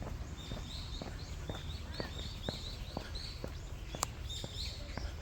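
Footsteps on a walking trail at a steady pace, about two steps a second, with a bird chirping over and over in short calls. One sharp click about four seconds in.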